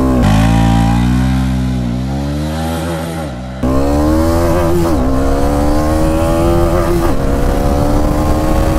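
Bajaj Dominar 400's 373 cc single-cylinder, liquid-cooled engine accelerating hard through the gears on a top-speed run. The pitch climbs and drops back at each of several upshifts.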